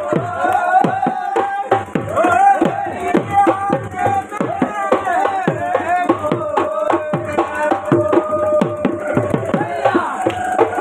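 Dance music driven by a dhol barrel drum played with many quick strokes, the pitch of each stroke dropping after the hit, over a held melody line.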